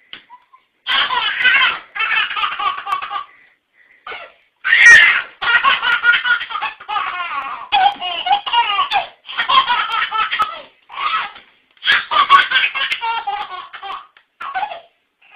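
A baby laughing hard, in repeated high-pitched bouts of belly laughs with short pauses between them.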